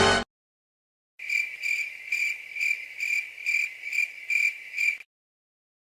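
Cricket chirping sound effect: a regular series of short, high chirps, about two a second, for about four seconds, after a moment of silence. A music clip cuts off abruptly just as it begins.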